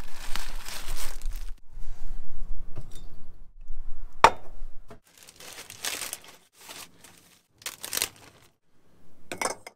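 Crinkling and rustling in several bursts, like something being handled, with one sharp click a little after four seconds in.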